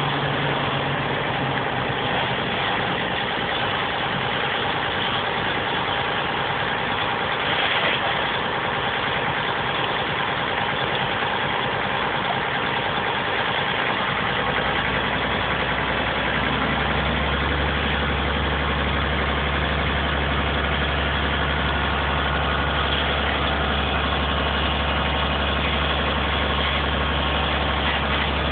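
A vehicle engine running steadily at idle, with a deeper low drone setting in about halfway through and holding to the end.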